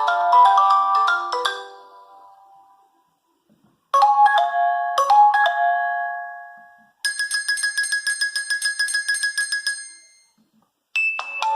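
A run of Nokia 8110 4G ringtones. A melody fades out in the first couple of seconds, and after a short silence a new tone plays a few ringing notes that die away. About seven seconds in comes a rapid high-pitched beeping, several beeps a second, for about three seconds, and another melody starts near the end.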